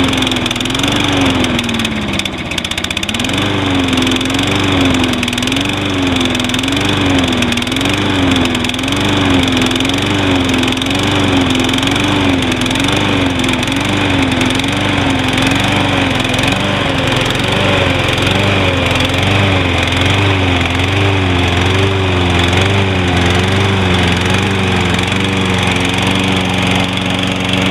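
Toro Recycler model 20332's 190cc mower engine running just after a hard cold start, having sat unused for a while. Its speed rises and falls about once a second, dips briefly about two seconds in, then settles into a steady run near the end.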